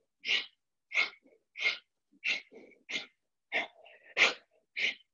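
A person's sharp, forceful exhalations in a steady rhythm, about three every two seconds, during a kriya breathing exercise.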